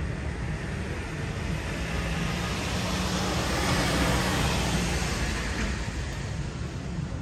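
A motor vehicle passing close by: its noise swells to a peak about four seconds in and then fades away, over a steady low rumble.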